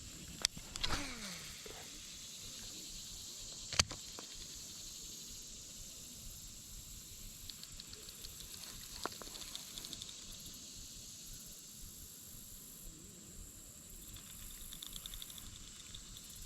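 Faint outdoor ambience: a steady high hiss with pulsing insect chirps, broken by two sharp clicks in the first four seconds and short sounds falling in pitch near the start and about nine seconds in.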